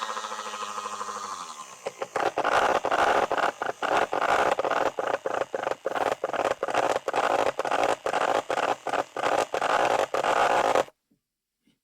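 A small mini washing machine motor hums steadily, then winds down and stops. About two seconds in, a loud, choppy rasping noise starts, broken by many short gaps, and cuts off suddenly near the end.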